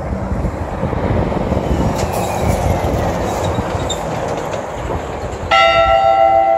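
Running and road noise of a moving vehicle, heard from inside as it rolls along. About five and a half seconds in, a louder, sustained chord of steady tones starts suddenly and holds.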